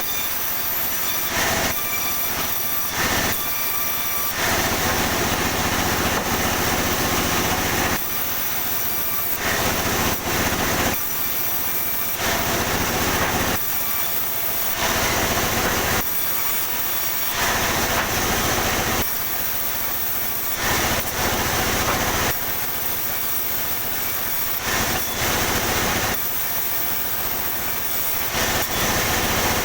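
Sawmill saw cutting pine lumber: the saw runs steadily, and the sound swells into a louder, hissing cutting noise in repeated stretches lasting from under a second to a few seconds as the blade works through the wood.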